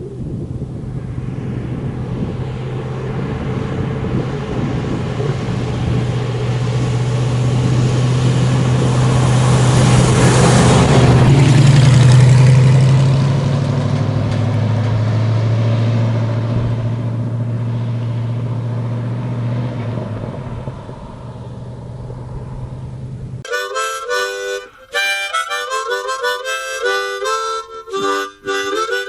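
A 1969 Chevy pickup truck driving past: engine and road noise build to a peak about halfway and fade, the engine note dropping a little as it goes by. Near the end it cuts suddenly to harmonica music.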